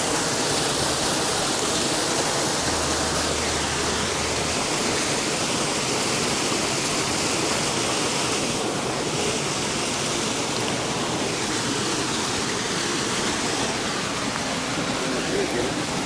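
Waterfall rushing steadily.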